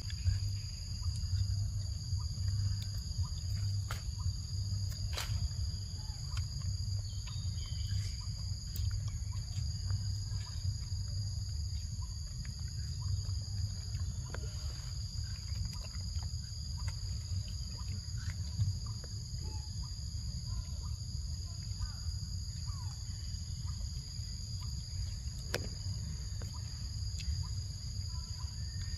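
Forest insects making a steady, high-pitched drone over a low rumble, with scattered faint clicks.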